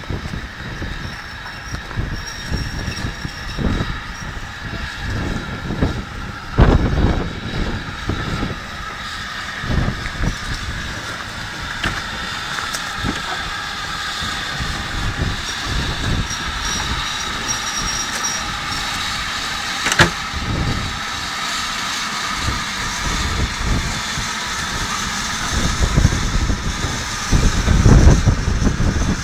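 BR Standard Class 5 4-6-0 steam locomotive No. 73050 running slowly up to and alongside the listener: a steady hiss of steam over the uneven rumble and clank of the engine on the rails. There is a single sharp clank about two-thirds of the way through, and it is loudest near the end as the engine draws close.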